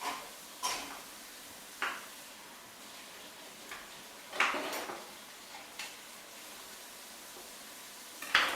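Short clinks and clatters of kitchenware, about six separate knocks, one about four and a half seconds in lasting a little longer and the loudest near the end.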